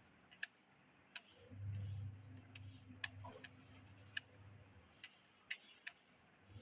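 Sharp, unevenly spaced clicks, about seven of them, over a faint low hum that comes and goes.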